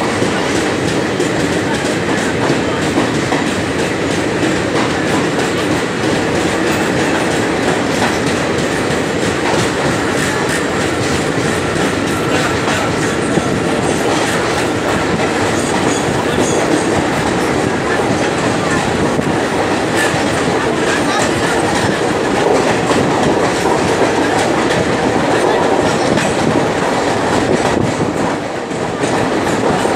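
Passenger train running through a tunnel, heard from an open coach window: a loud, steady rumble of wheels on rails with clickety-clack, dipping briefly near the end.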